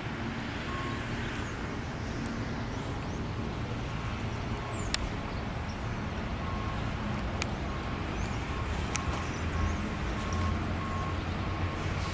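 Outdoor background noise: a steady low rumble, with a short high beep repeating about twice a second from about halfway through and a few sharp clicks.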